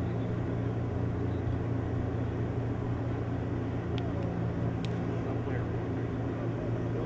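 Steady low rumble with a constant low hum, plus two brief high ticks about four and five seconds in.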